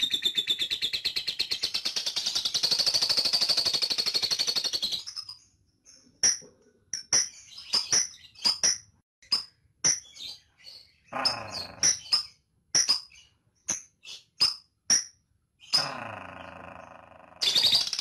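Fischer's lovebird chattering in a long rapid rattle (ngekek), then giving a run of short, sharp single chirps at uneven intervals (the ticking 'ngetik' call). Near the end the rapid rattle starts up again.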